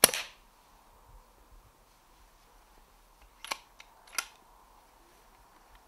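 One shot from a Brocock Concept XR .177 pre-charged pneumatic air rifle fitted with a sound moderator: a sharp crack that dies away within a fraction of a second. About three and a half seconds later come two metallic clicks, under a second apart, as the action is cycled to reload.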